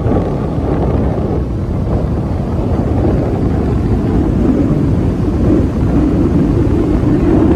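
Steady rush of wind and road noise from a moving vehicle, with a low drone that grows a little stronger near the end.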